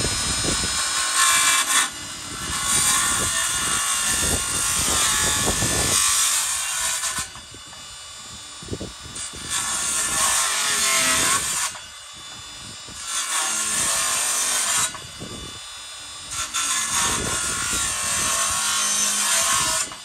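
Makita 18-volt cordless circular saw cutting repeated shallow passes, blade set half an inch deep, along a wooden door jamb to nibble away a rabbet. The saw runs loud through a cut for a few seconds at a time, about five times, and eases off between passes.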